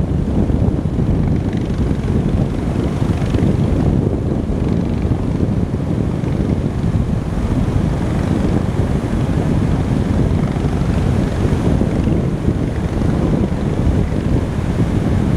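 Sea surf breaking steadily along the shore, under a loud low rumble of wind buffeting the microphone.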